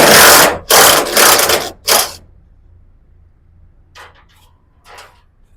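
Power impact wrench running in three bursts, two of about a second each and a short one about two seconds in, backing out fasteners; then a couple of faint clinks.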